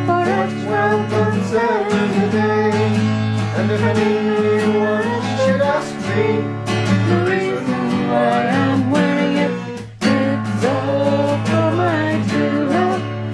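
Steel-string acoustic guitar strummed in a folk rhythm, with a voice singing a melody over it; the playing breaks off for a moment about ten seconds in.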